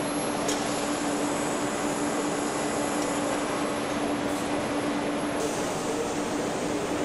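Steady machinery noise of an automated engine production line, with a constant hum underneath and a faint click about half a second in.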